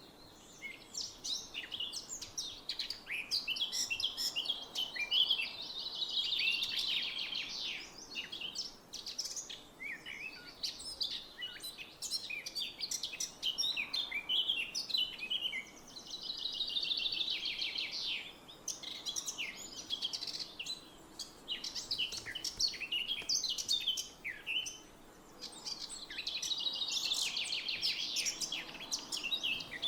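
Songbirds singing, with many short chirps and a rapid trilled phrase repeated about every ten seconds.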